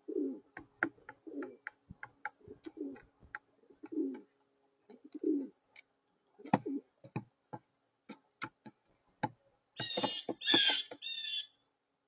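Rock pigeon cooing softly in a run of short low coos, mixed with quick sharp taps of its beak pecking seed on the table. Near the end comes a louder, higher-pitched chattering bird call.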